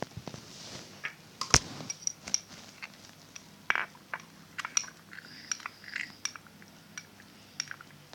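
Slime being worked by hand in a plastic container: irregular small clicks, taps and squelches, with one sharper knock about a second and a half in.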